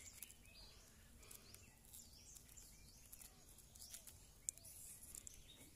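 Faint outdoor ambience with birds chirping, short arched calls repeating every half second or so, and one sharp click about three-quarters of the way through.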